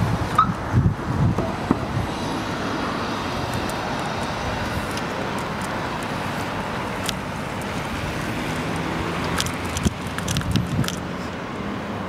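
Steady street traffic noise with wind on the microphone, heard while riding a bicycle. There are a few knocks and rattles about a second in and again near the end.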